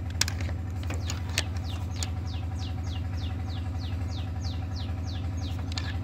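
A few metal clicks as a bar levers a tractor engine's flywheel round by its ring-gear teeth, turning the engine by hand for tappet setting. This sits over a steady low mechanical hum. From about a second and a half in, a bird gives a quick run of short falling chirps.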